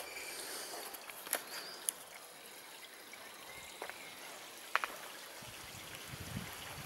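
Faint trickle of water from a small garden pond over a steady outdoor background, with a few soft clicks. Low rumbling sounds come in about five and a half seconds in.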